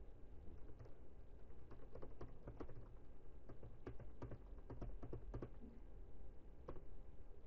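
Computer keyboard typing: faint keystrokes in short irregular runs with brief pauses between them.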